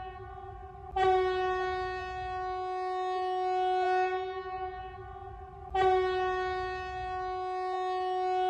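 Emergency alert alarm for a Swedish region: one steady horn-like tone held throughout, sounded afresh with a sharp attack about a second in and again near six seconds, its bright edge fading between.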